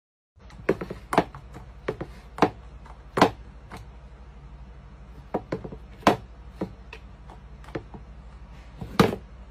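A cat's paw tapping and knocking on a plastic pet water fountain: irregular sharp knocks, about fifteen of them, some much louder than others, over a steady low hum.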